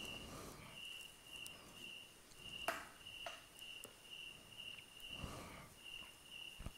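Insect chirping, a steady high-pitched tone pulsing in short trains with brief breaks, with a few soft knocks and rustles of handling, the sharpest a little before halfway.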